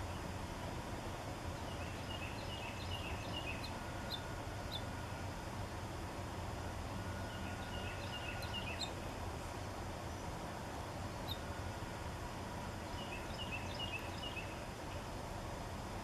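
A songbird singing a short phrase of quick, high notes three times, several seconds apart, over a steady outdoor background hiss.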